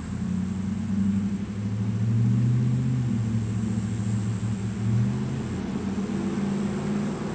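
An engine running steadily with a low hum, growing louder over the first two seconds or so, over a steady high hiss.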